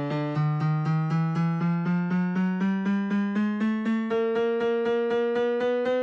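Data sonification on piano: a steady run of short, evenly spaced notes, about four a second, each note one year of average wages, its pitch climbing gradually as wages rise.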